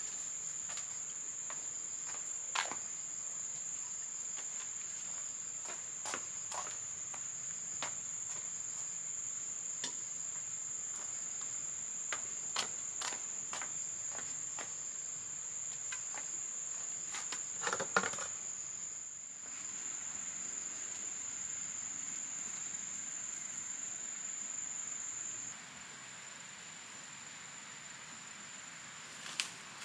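Insects trilling in one steady high-pitched note, which grows fainter about 25 seconds in. Scattered light clicks and knocks sound over it, the loudest about 18 seconds in.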